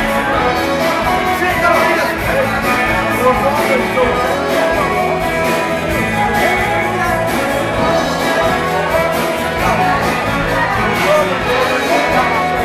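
Loud rock music with singing and a steady beat.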